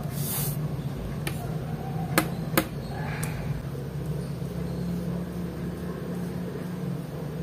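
Two sharp clicks of a mechanical pencil being clicked, a little over two seconds in, after a fainter click, over a steady low hum. A short hiss at the very start.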